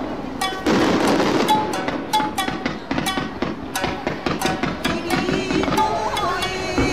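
Music with a held melody, and many sharp, irregular pops and crackles from fireworks running through it.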